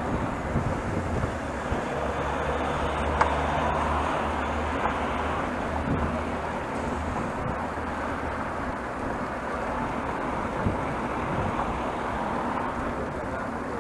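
Cycling noise through an action camera's microphone: a steady rush of wind and tyre-on-pavement noise. A low engine hum, from a bus, lasts from about two to six seconds in, and there is a single sharp click about three seconds in.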